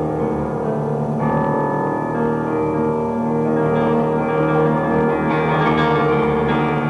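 Piano music with held chords that change every second or so.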